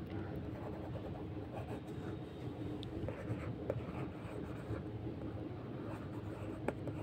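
Plastic stylus scratching across the pressure-sensitive screen of an LCD writing tablet as words are written by hand, with a few light clicks of the stylus against the surface.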